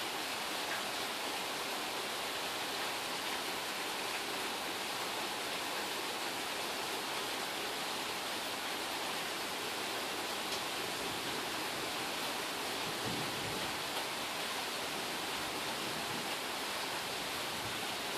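Steady rain shower falling: an even, unbroken hiss of rain with no thunder.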